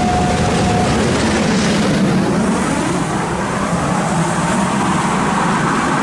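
A steam locomotive's whistle holds one steady note and cuts off about a second in. Then comes the loud, steady noise of the steam train working away from the station, its coaches rolling past.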